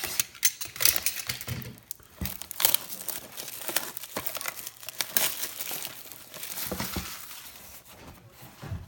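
Plastic wrap crinkling and tearing in irregular crackles as a sealed box of trading cards is unwrapped by hand.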